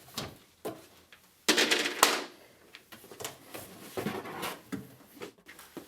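Laundry tub parts and packaging being taken out of a cardboard box: scattered knocks, clatters and rustling, loudest about one and a half to two seconds in.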